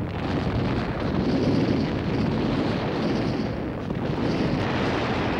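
Steady low rumble of distant artillery fire, a continuous din with no single blast standing out.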